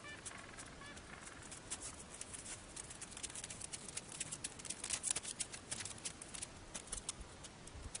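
Gentoo penguin footsteps on a packed snow path: a quick run of small clicks and scuffs that grows louder as the bird nears, loudest about five seconds in.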